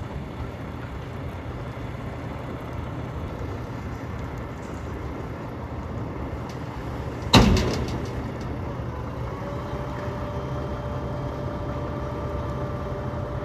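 Mack Granite roll-off truck's diesel engine running steadily, with one sharp, loud metallic bang that rings briefly about halfway through. A steady whining tone joins the engine shortly after the bang.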